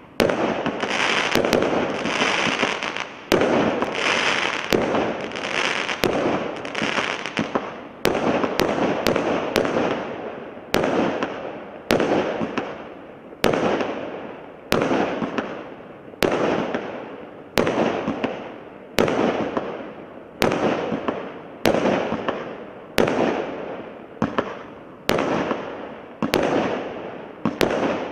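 Devco 'Space Adventure' multi-shot firework cake firing shot after shot at about one a second. Each shot is a sharp bang that trails off over about a second as the stars burn out.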